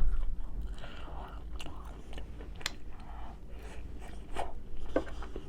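Close-miked chewing of food, with wet mouth clicks and smacks scattered through it.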